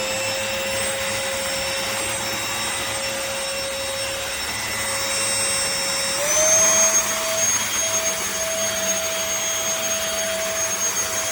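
MBYULO 500W cordless stick vacuum cleaner running with a steady high motor whine over the rush of airflow. The whine steps up to a higher pitch about six seconds in as the motor speeds up, and the sound briefly gets louder there.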